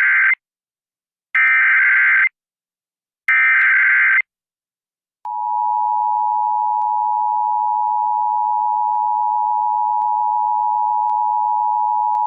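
Emergency Alert System alert opening: three short digital header bursts about a second each with brief gaps, the first already sounding at the start, then a steady two-tone attention signal that begins about five seconds in. It marks the start of a broadcast emergency alert, here a flash flood warning.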